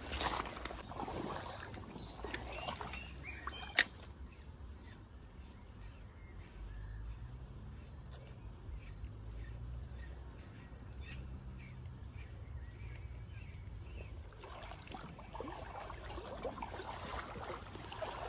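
Quiet outdoor background noise by the river, with a few small handling clicks in the first seconds and one sharp click about four seconds in. A faint low hum sits under the middle stretch.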